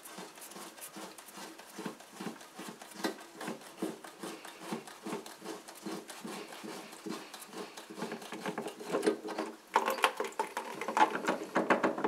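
Plastic coupling nut of a braided toilet supply line being unscrewed by hand from the shank of the old fill valve: a steady run of soft scraping ticks, about three a second, turn after turn. The handling gets louder and busier near the end as the line comes free.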